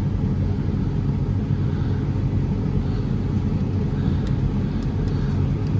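Diesel engine of a Case CX330 excavator running steadily, heard from inside the cab as an even low hum.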